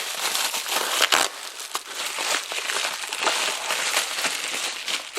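Packaging crinkling and rustling as new parts are handled and unpacked from a kit, with a sharper knock about a second in.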